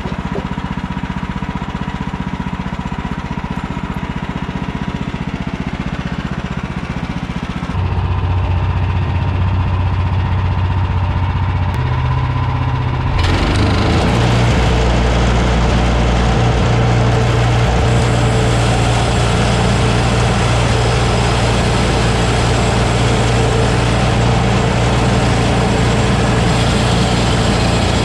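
Woodland Mills HM130max bandsaw mill's gas engine running steadily, then throttled up about eight seconds in. From about thirteen seconds in a louder, rougher noise joins it as the band blade cuts through the log.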